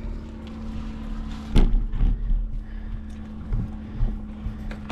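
Clicks and knocks of a bicycle being handled at a bike rack, the loudest about a second and a half in. Under them runs a steady low hum with a constant tone.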